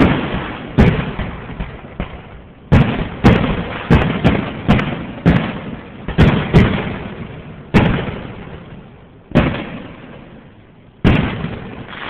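Fireworks finale: about a dozen aerial shell bursts going off in an uneven rapid series, each sharp bang trailing off in echo, bunched closest together between about three and seven seconds in. Picked up on a cell phone's microphone, so it sounds thin, with no treble.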